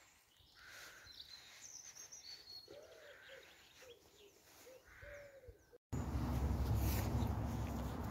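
Garden birdsong: small birds chirping high, then a pigeon cooing in a series of low, arched notes. About six seconds in, the sound cuts to a much louder, steady rushing noise.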